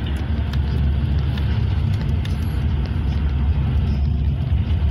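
Steady low rumble of a moving road vehicle, heard from inside the cab: engine and tyre noise while driving along at speed.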